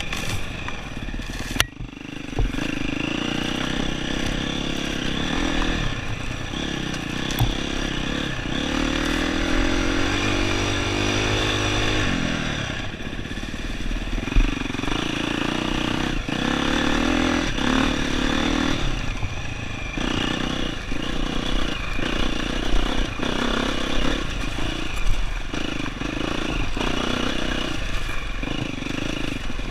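Dirt bike engine running under throttle over rough single-track, the revs rising and falling as the rider works the throttle, climbing for a few seconds about a third of the way in and then dropping. Scattered knocks and clatter from the bike bouncing over rocks and through brush.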